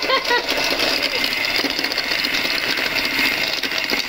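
Bosch electric hand mixer running steadily, its twin beaters whipping instant coffee, sugar and a little water in a plastic jug. This is the beating stage of frothy whipped coffee, which goes on until the mixture turns pale and thick.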